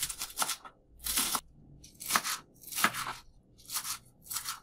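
Kitchen knife slicing through a bunch of green onions onto a plastic cutting board: about six crisp, crunchy cuts, roughly one every second or less, as the stalks are cut into coarse pieces.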